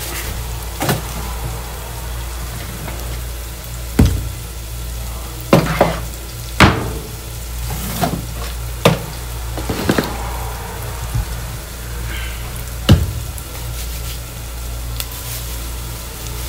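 Chopped onions and chillies frying in oil in an aluminium pot, sizzling steadily over a low hum, with scattered sharp knocks against the pot.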